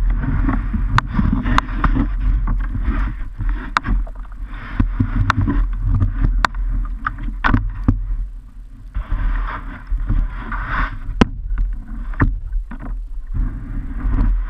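Knocks and scrapes on a kayak's hull with water sloshing, as the paddler climbs out onto a snowy bank, over a steady low rumble.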